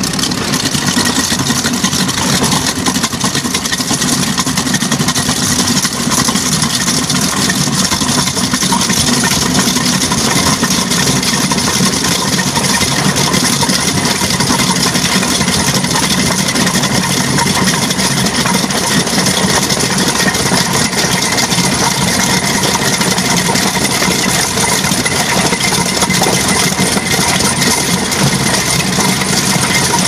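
Brokk demolition machine's hydraulic tool breaking up the refractory lining of a blast furnace trough, a loud, steady, continuous machine noise with a constant hum underneath.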